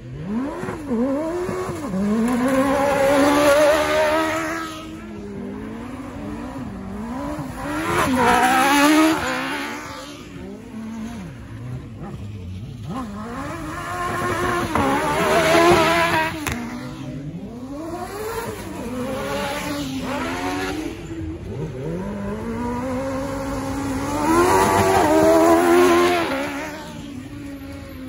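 Several autocross buggy engines racing together on a dirt track, their pitch repeatedly rising and falling as they rev through the corners and shift gears. The sound swells loudest four times as the pack passes close.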